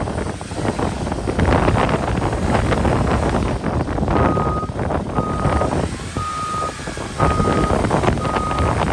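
Case 851FX backhoe loader running, its reversing alarm starting about four seconds in with steady beeps about once a second.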